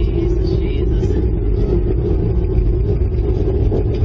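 Loud, steady low rumble with a droning hum over it: the unexplained night-time sound that the people filming react to as something strange coming closer.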